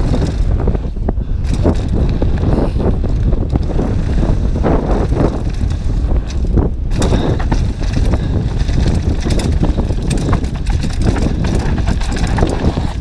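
Mountain bike riding fast down a gravel trail: tyres crunching and the bike rattling over bumps, with wind rumbling on the camera's microphone.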